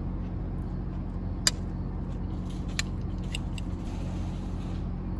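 A fork clicks lightly against a salad bowl a few times while eating, the sharpest click about a second and a half in, over a steady low hum.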